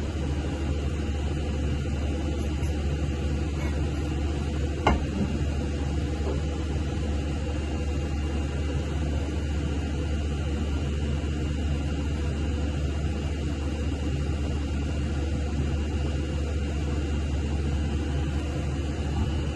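A steady low hum with an even hiss over it, and a single sharp click about five seconds in.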